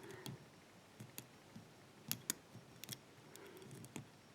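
Faint, irregular clicks and ticks of a lock pick and tension wrench working the pin stack of a 5-pin brass barrel padlock during single pin picking.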